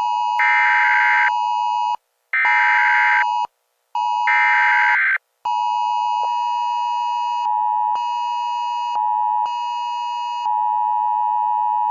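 Emergency Alert System–style alert tones: three short warbling data bursts over a steady tone, each cut off by a brief gap, then a long unbroken alert tone with a second, higher tone joining it.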